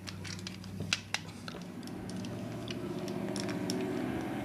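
Hard plastic parts of a Transformers Grappel action figure being handled and pressed together to peg them: scattered light plastic clicks and knocks, the sharpest about a second in, over a low steady hum.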